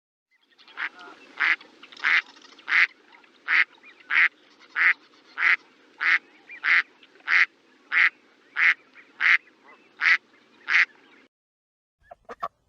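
A duck quacking in a steady series of about sixteen short quacks, evenly spaced about two-thirds of a second apart, stopping about eleven seconds in. A few faint clicks follow near the end.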